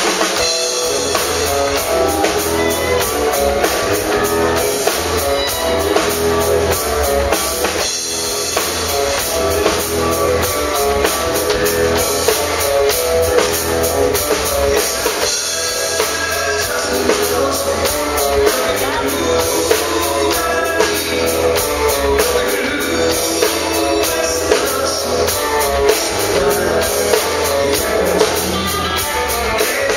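Live rock band playing through a PA: electric guitar, electric bass and drum kit keeping a steady beat.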